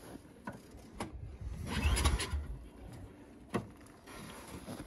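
A snowmobile engine is pull-started once, about two seconds in: a short burst of cranking that does not catch, from an engine that is hard to start. A sharp click follows a little later.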